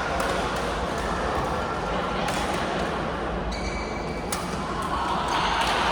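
Indoor basketball game: sneakers squeak on the court a few times and the ball thumps, over a steady murmur of voices echoing in the gym.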